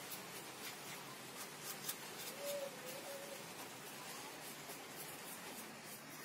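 Brush strokes scrubbing dust and cobwebs off the back of a CRT television: faint, irregular scratching and rustling.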